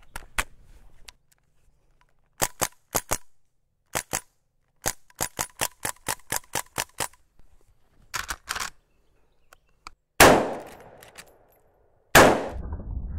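CO2-powered BB air rifle firing short sharp cracks, singly and in a quick string of about five shots a second. About ten and twelve seconds in come two much louder shots from a lever-action rifle, each with a long echoing tail.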